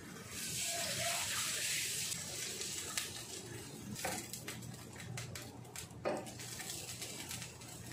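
Water poured into a hot pan of rice and leeks for about two seconds, then a wooden spoon stirring and knocking against the pan, with one sharper knock near the end.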